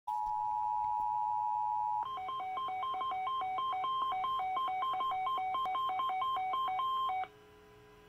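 Emergency Alert System tones: a steady two-tone attention signal for about two seconds, then a rapid run of short beeps switching between pitches, like touch-tone dialing, for about five seconds, cutting off abruptly. It is the alert heading a relayed severe thunderstorm warning.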